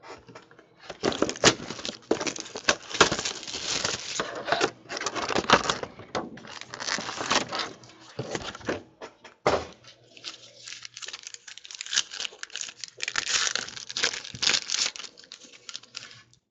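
Red foil trading-card pack wrappers crinkling and tearing as they are ripped open and handled, an irregular crackle that eases for a couple of seconds around the middle.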